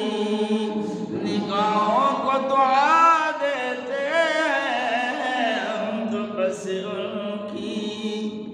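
A man singing devotional Urdu verse, drawing out a long, wavering, ornamented note with no words, over a steady held drone.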